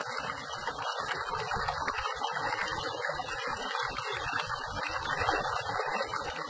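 Steady rush of muddy water gushing out of a pipe outlet and splashing into shallow water.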